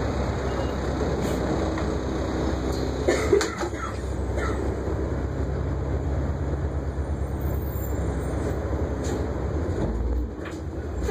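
City transit bus engine running steadily, heard from inside the bus by the front doors. About three seconds in, the front doors clunk shut with a loud rattle.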